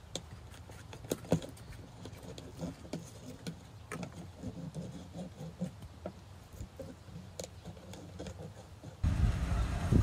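Cattle shuffling on frozen, snowy ground: irregular crunches and knocks from hooves, with no mooing. About nine seconds in, the sound jumps louder to a steady low rumble as a herd moves along.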